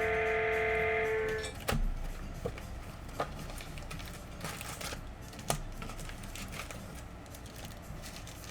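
A held musical chord ends about a second in, followed by a sharp click and then scattered light clicks and ticks from handling a trading-card box and its packaging.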